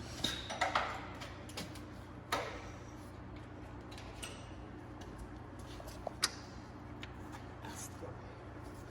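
Hand tools clinking and tapping on metal while Allen keys are tried in the belt tensioner's bolt. There are a few clicks close together about half a second in, one about two seconds in and a sharp one about six seconds in.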